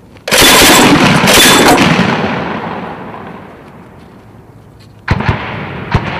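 Mk 19 40 mm automatic grenade launcher firing a three-round burst about a third of a second in, loud and ringing out over about two seconds. Near the end come two shorter sharp bangs about a second apart.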